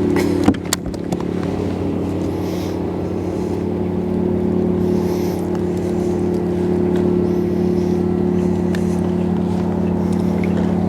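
A steady motor drone, an engine running at an even speed with a constant low hum. A few sharp clicks and a knock come in the first half-second.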